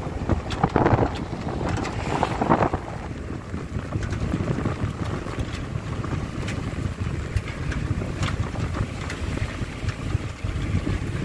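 Wind buffeting the microphone over the steady rumble of a moving vehicle, heard from the open back of the vehicle; it is louder in the first few seconds.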